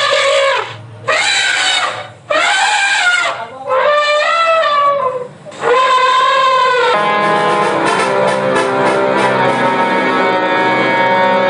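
Background music: a brass-like lead plays a few separate held, bending notes, then about seven seconds in it gives way to steady sustained organ-like keyboard chords.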